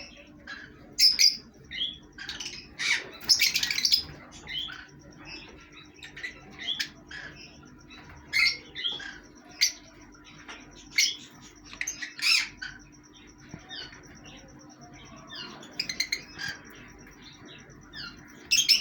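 Pet parrots, green lovebirds among them, calling in short, sharp chirps and squawks at irregular intervals, with a few louder bursts.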